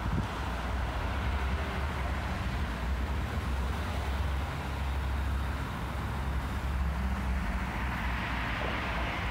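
Steady road traffic noise: a low rumble of passing cars, swelling a little near the end.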